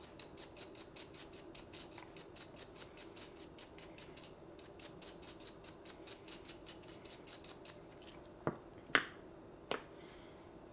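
Toothbrush bristles scrubbing a plastic camera body cap damp with cleaning spray, in quick even strokes of about six a second that stop a little before the end. Three sharp knocks follow near the end.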